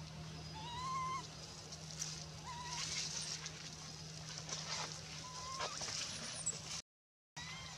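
Baby macaque giving three short, thin coo calls a couple of seconds apart, with rustling of dry leaves and gravel as it scrambles over the ground.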